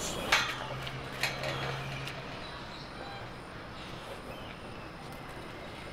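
Faint outdoor background noise, with a low steady hum for about the first two seconds and two short clicks near the start.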